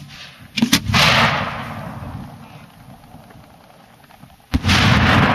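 Firework shell reports. Two sharp bangs come close together about half a second in and fade into a rolling echo. About four and a half seconds in, a single loud bang sounds as a shell bursts high in the air, and its echo rolls on.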